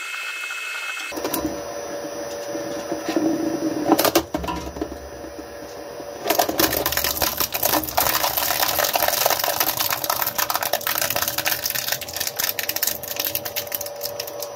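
Twin-shaft shredder running and breaking up a rigid plastic food container. There are loud cracks about four seconds in, and from about six seconds a dense run of crunching and crackling as the plastic is torn apart between the blades.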